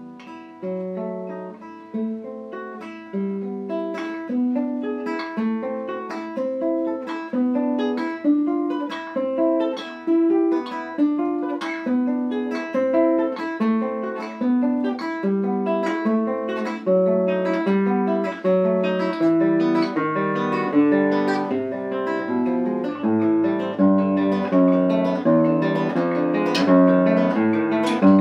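Nylon-string classical guitar played solo with the fingers: a steady flow of plucked notes in repeating arpeggio figures, growing louder over the first few seconds.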